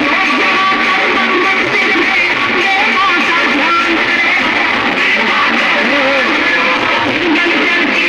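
Music with guitar, playing steadily at an even, loud level.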